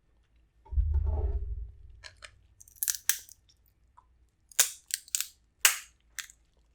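Close-miked eating of a seafood boil: a low muffled bump about a second in, then chewing with a string of sharp wet clicks and crunching cracks, several of them loud.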